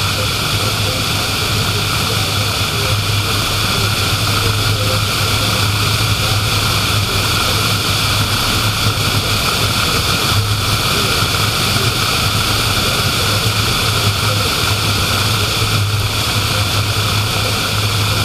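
Steady road noise of a car driving at speed: tyre rumble on asphalt over a constant low hum, unchanging throughout.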